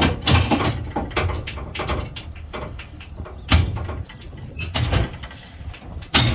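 Irregular knocks and clanks over a steady low engine rumble, from the cable rigging and trailer as a dead John Deere 5020 tractor is pulled toward the trailer. The sharpest knocks come about a third of a second in, about three and a half seconds in and just before the end.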